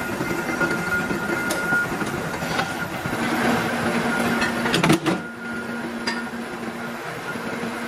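Flywheel-driven mechanical power press running with a steady machine hum, and one sharp metal clang about five seconds in as the press works an iron wheel-rim piece. Fainter metal clicks come as the piece is handled in the die.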